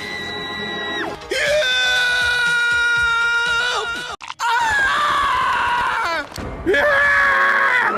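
A run of animated cartoon characters' screams edited back to back: about four long held screams, each lasting one to two and a half seconds, with short breaks between them and a soundtrack score behind some.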